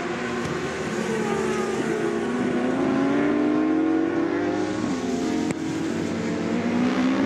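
Racing superbike engines at high revs, pitch falling and climbing as the riders brake, shift and accelerate, with an abrupt change in the engine note about five and a half seconds in.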